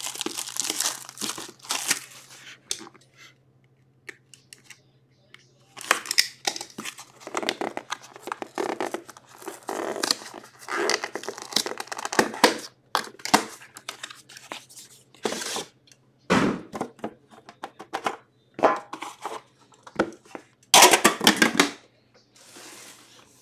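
Plastic wrapping and packaging of a sealed 2021 The Cup hockey card tin being torn open and crinkled by hand, in irregular bursts with a short quiet gap about three seconds in.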